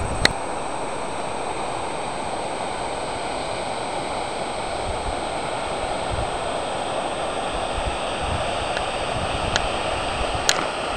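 Mountain stream rushing steadily, with a sharp click just after the start and another near the end.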